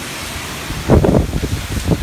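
Violent typhoon wind blowing with a steady rushing hiss, gusts buffeting the microphone heavily about a second in and again near the end.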